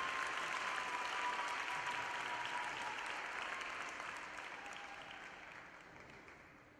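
Arena crowd applauding, the clapping thinning out and dying away over the last few seconds.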